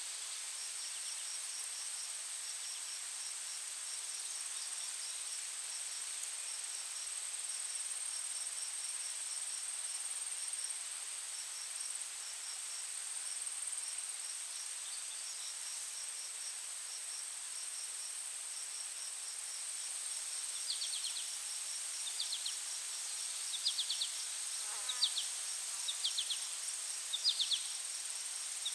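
Forest ambience of insects: a steady high-pitched drone with rows of short, evenly repeated chirping pulses. In the last third a bird joins in, calling short, sharp notes about once a second.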